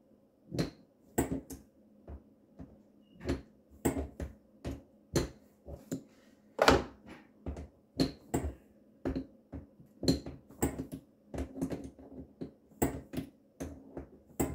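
Irregular sharp knocks and clicks, one or two a second, of hands working the water supply connections and hoses under a kitchen sink cabinet while the lines are disconnected.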